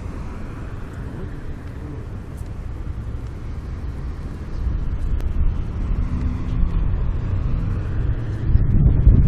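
A boat's motor running under way, with wind rumbling on the microphone; it gets louder about halfway through and again near the end.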